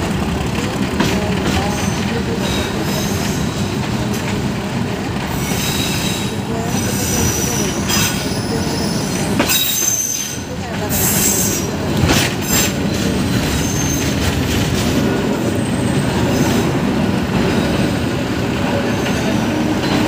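Bangladesh Railway passenger train (Balaka Commuter) running on the track, heard from beside its carriages: a steady rumble of wheels on rails with high wheel squeal coming and going and scattered rail-joint clicks.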